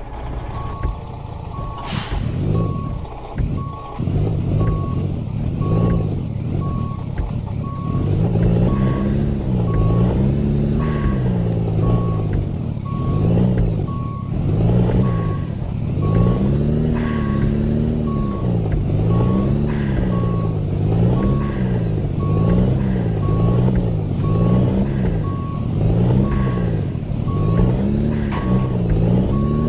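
Heavy truck reversing: the back-up alarm beeps steadily while the engine revs up and down again and again.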